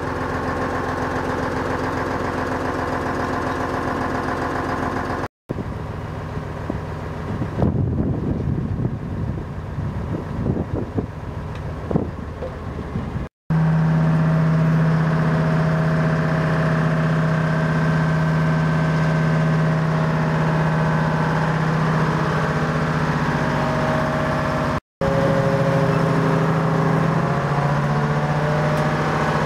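1978 P&H 300A hydraulic truck crane's Detroit Diesel engine running at a steady idle, in several takes that cut off abruptly. In one stretch in the middle the sound turns rougher and uneven, with louder surges.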